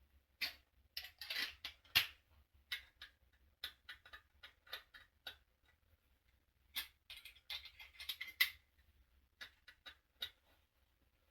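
Hands working on an electric water heater's thermostat and mounting clips: bursts of short clicks, scrapes and rustles of small metal and plastic parts being handled, with the densest runs in the first few seconds and again past the middle.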